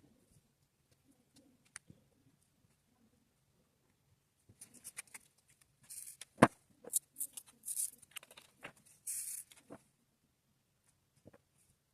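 Diamond painting work: small plastic resin drills and tools clicking and rattling. A few faint ticks at first, then a busy spell of sharp clicks and short rattling rustles from about halfway in, with one loud click in the middle, dying back to faint ticks near the end.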